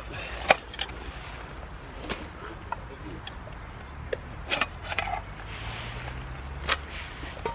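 A few scattered sharp clicks and knocks, with a low steady hum coming in during the second half.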